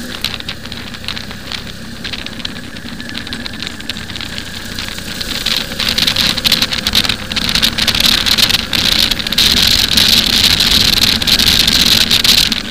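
Cruiser motorcycle riding along with its engine running under a steady wash of wind noise over the microphone. The wind hiss grows louder about halfway through as the bike picks up pace.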